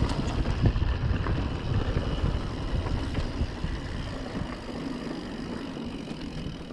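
Mountain bike riding over a rough track: tyres and frame rattling, with wind buffeting the microphone. It grows steadily quieter.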